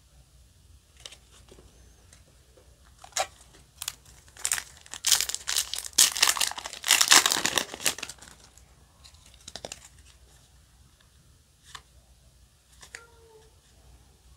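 Foil booster-pack wrapper being torn open and crinkled by hand: a few sharp crinkles, then a few seconds of dense crackling in the middle that is the loudest part, then scattered crinkles again.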